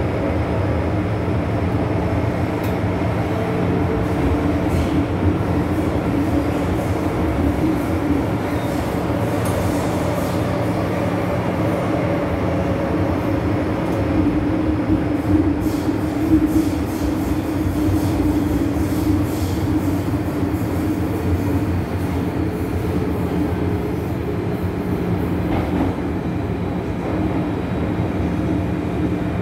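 MTR Island Line M-Train running through a tunnel, heard from inside the car by the doors: a steady rumble of wheels on rail with a constant low motor hum.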